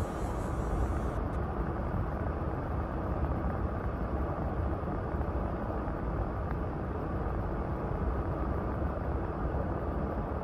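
Wind buffeting the microphone in a snowstorm: a steady low rumble with constant flutter.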